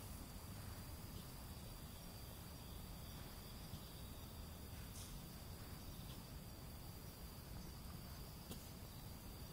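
Faint night-time outdoor ambience: a steady, high-pitched insect trill over a low background rumble, with a couple of faint clicks.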